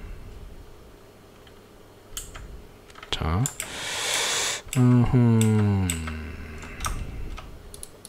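Scattered computer keyboard and mouse clicks. About three seconds in, a man's voice makes a short rising sound, then a breathy sigh, then a long falling 'hmm', which is the loudest sound.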